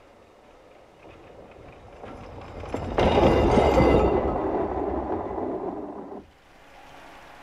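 Diesel railbus passing close by on a snowy line: its running noise builds, peaks about three seconds in, fades, and cuts off abruptly about six seconds in.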